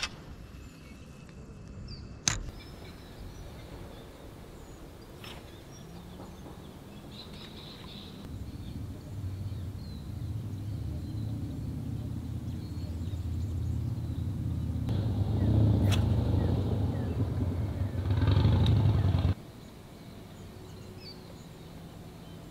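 A low engine hum that grows louder from about six seconds in and stops abruptly a few seconds before the end. A single sharp click comes about two seconds in.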